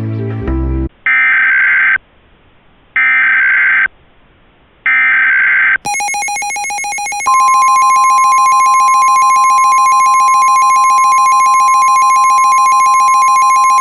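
Emergency Alert System header: three short, harsh data bursts about a second apart. Then the attention alarm sounds, a buzzy tone joined about a second and a half later by the steady, single-pitched National Weather Service warning tone.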